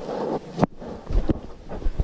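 Footsteps on a muddy trail as a few dull thumps, over steady rushing wind and handling noise on a handheld camera's microphone.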